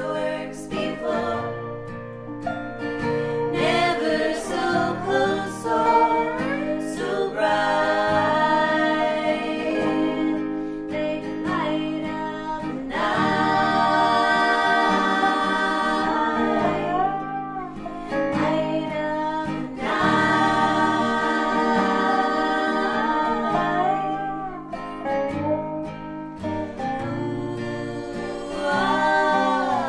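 An Americana song performed live: women's voices singing in three-part harmony over plucked guitar and dobro.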